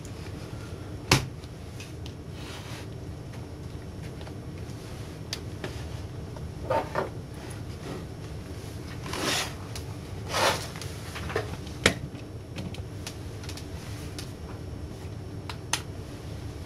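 An opened LCD monitor being handled on a workbench: a few sharp clicks and knocks from its metal chassis and plastic frame, and several brief scraping, sliding sounds as it is turned over and stood upright, over a steady low hum.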